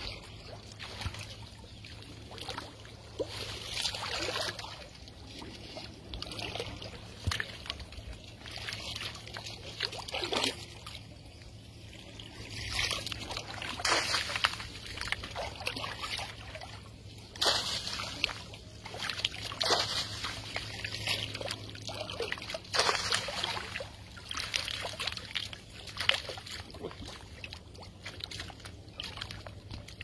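Shallow paddy water sloshing, splashing and trickling in irregular bursts as a mesh ring-net fish trap is dragged through it and lifted, water running off the netting.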